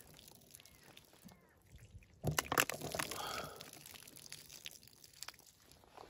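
Water sloshing and dripping off a plastic tray of freshly rinsed raw chicken pieces, with a louder burst of handling noise from the tray about two seconds in.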